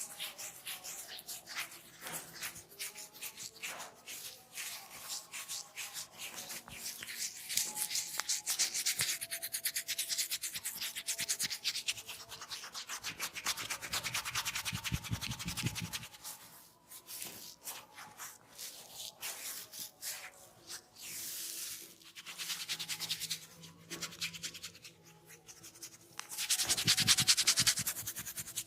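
Hands rubbing and kneading a scalp through the hair during a head massage: a dense stream of scratchy rubbing strokes close to the microphone, louder for a few seconds near the end.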